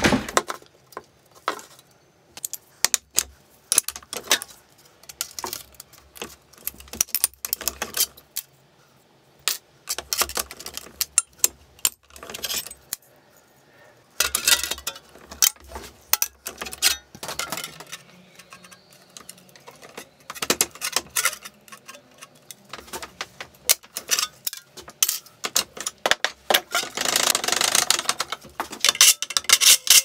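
Scattered metallic clinks and knocks on a workbench as a bench vise is set up and a handsaw clamped in it. Near the end, steady scraping strokes of a metal file run along the saw's teeth.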